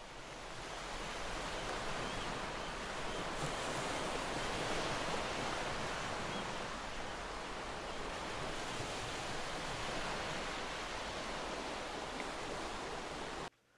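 Ocean surf: a steady rushing wash of waves that swells in over the first couple of seconds, holds even, and cuts off abruptly near the end.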